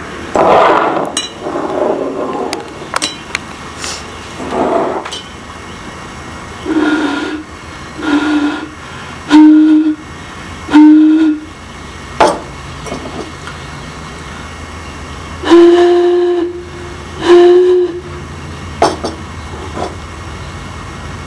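Glass vessels holding different amounts of water, sounded by blowing across their mouths. The first few blows give only breathy rushing air. Then four short, hollow whistle-like notes follow, a little apart in pitch, and two longer, slightly higher notes come near the end.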